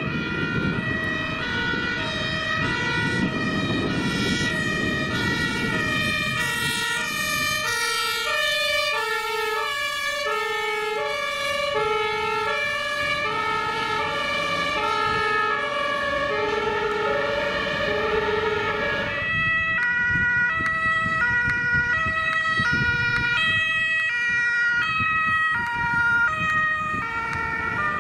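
German two-tone emergency siren (Martinshorn) on ambulances, alternating between a high and a low note over engine and road noise. The notes slide lower about a third of the way in as the vehicle goes past. About two-thirds through, after a cut, a second emergency vehicle's two-tone siren carries on at a different pitch.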